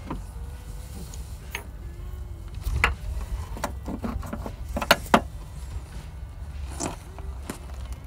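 Scattered sharp knocks and metal clinks among the exposed crankshaft and connecting rods of a wrecked engine, as a gloved hand moves the parts. The loudest is a pair of knocks about five seconds in, over a low steady rumble.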